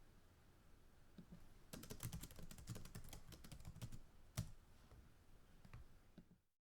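Fast typing on a computer keyboard heard close up: after a quiet start, a quick run of key clicks, one louder key strike about four seconds in, then a few scattered keystrokes before the sound cuts off.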